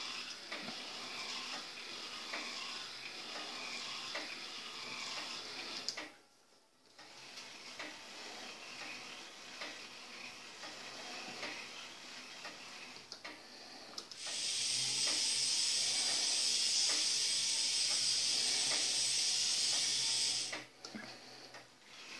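Small K'NEX electric motors driving a train of plastic gears, a whirring clatter with light clicks. It drops away briefly about six seconds in and picks up again. From about fourteen to twenty seconds in it grows much louder and steadier with a high hiss and a low hum, then falls back.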